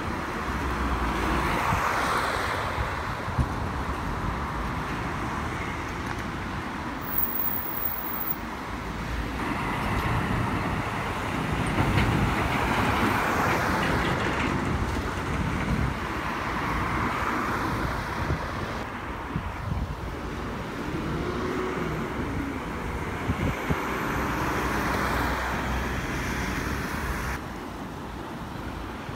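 Road traffic: lorries and cars driving past, their engines and tyres swelling and fading several times. The sound changes abruptly a few times where one recording ends and another begins.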